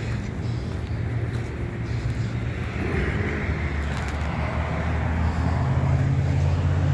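Car driving on a wet road: a steady low engine hum under a wash of tyre and spray noise, growing louder in the last couple of seconds.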